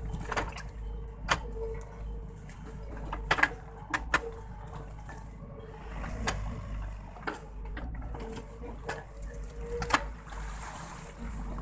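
Sany SY55C mini excavator working, its diesel engine running with a steady low rumble. Sharp knocks and clanks come every second or two as the bucket and arm work through mud and debris.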